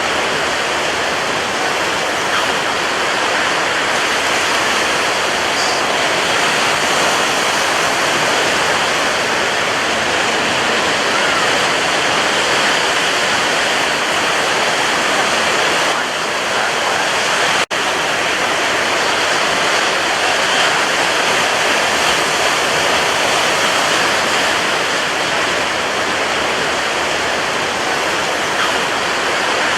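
Ocean surf: a steady, unbroken wash of breaking waves, with a split-second dropout a little past halfway.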